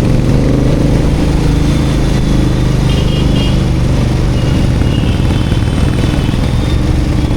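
Royal Enfield Continental GT 650's 648 cc parallel-twin engine and exhaust running steadily on the move.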